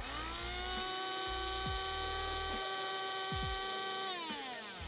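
Electric coffee grinder motor spinning up, running steadily for about four seconds, then winding down with a falling whine near the end.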